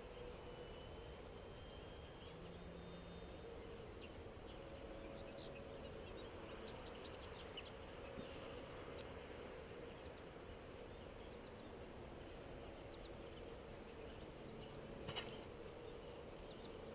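Faint open-field ambience: a soft steady hum with scattered faint wildlife chirps and a small tick about fifteen seconds in.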